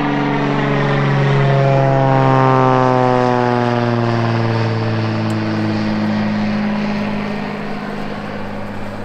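Small single-engine floatplane flying low overhead, its propeller engine droning. The pitch falls steadily as it passes and moves away, loudest about two seconds in and then fading.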